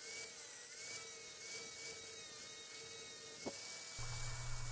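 Faint, steady whine of an angle grinder's motor, its pitch wavering slightly.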